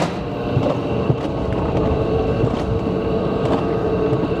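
Mountain coaster sled running fast along its steel rail track: a steady rolling rumble with a steady whine and a few sharp clicks.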